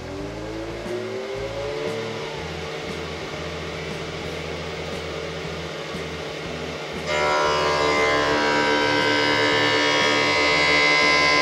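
Optician's lens edging machine cutting an eyeglass lens. Its motor spins up with a rising whine over the first two seconds, then runs steadily. About seven seconds in it turns suddenly louder, into a fuller, higher whine of many steady tones.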